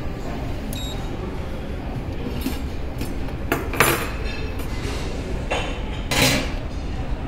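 A few clinks of tableware and a sharp knock about four seconds in, over a steady low rumble of background noise.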